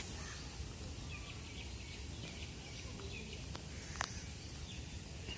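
Outdoor ambience: a steady low rumble with faint, scattered bird chirps, and a single sharp click about four seconds in.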